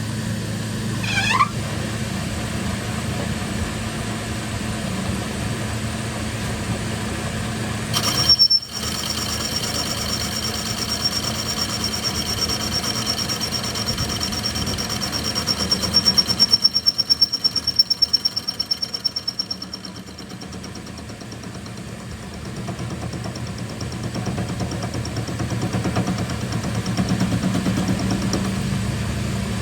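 A machine running with a steady low hum. A short rising squeak comes about a second in; after a sharp break about eight seconds in, a high steady whine runs until about twenty seconds, with a fast rattle near its end.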